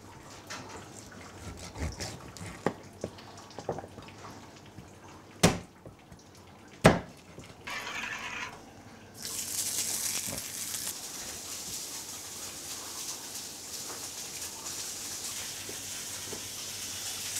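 Two sharp knocks about five and a half and seven seconds in. From about nine seconds there is a steady sizzle of lamb chops frying on an oiled flat-top griddle.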